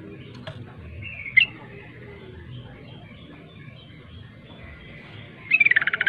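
Yellow-vented bulbul calling: a short gliding note about a second in, then a loud rapid run of chattering notes near the end.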